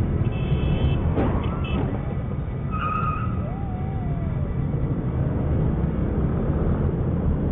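Steady low rumble of idling scooters and road traffic at an intersection, heard from a scooter rider's camera, with a short high beep about three seconds in.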